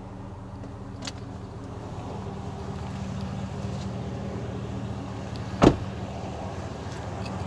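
Chevrolet Silverado 2500HD pickup idling with a steady hum. There is a light click about a second in, and a truck door is slammed shut with one loud bang near the end.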